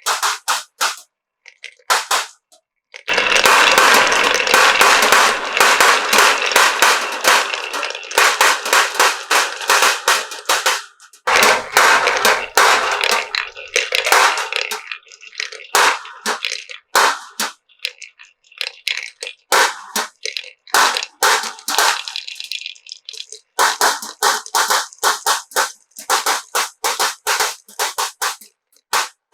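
Many marbles rolling and clacking down a HABA marble-run slope. Rapid clicks merge into a continuous rattle for several seconds at a time, with sparser single clicks in between.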